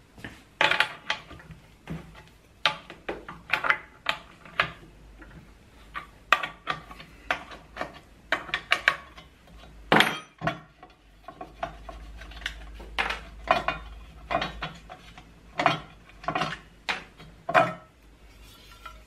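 Irregular metallic clinks, taps and scrapes as the bar nuts are undone and a handmade metal chain cover is lifted off a Jonsered 2077 chainsaw, with one louder knock about halfway through.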